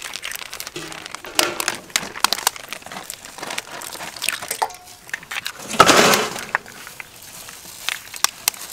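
Eggshells cracking and being pulled apart by hand over a stainless steel bowl: many short, sharp clicks and crackles, with one louder rush of noise about six seconds in.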